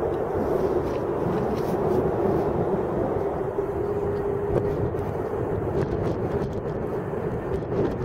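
Boeing 767-300 jet engines on final approach, a steady rushing noise with a constant droning tone.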